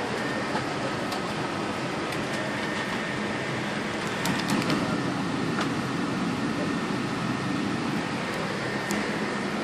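Steady airliner cabin ventilation noise in an Airbus A380 parked at the gate during boarding: an even air hiss over a low hum, with a few faint clicks and knocks.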